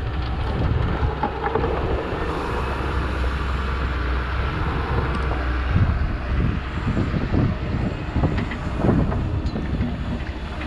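Diesel engine of a Doosan wheeled excavator running steadily as a low hum, with wind buffeting the microphone in irregular low thumps, more so in the second half.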